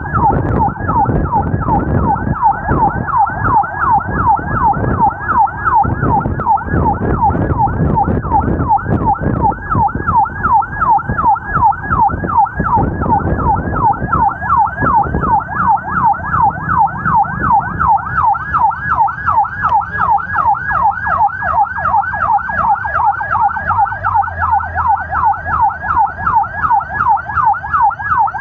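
Emergency vehicle siren in a fast yelp, sweeping up and down about three times a second, with vehicle and road rumble underneath that eases off about halfway through.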